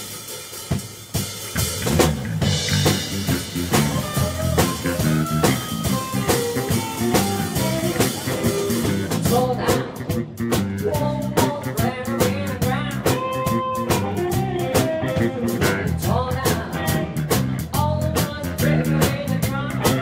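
Live blues-rock band playing an instrumental intro on drum kit, electric bass and electric guitars, the full band coming in about two seconds in.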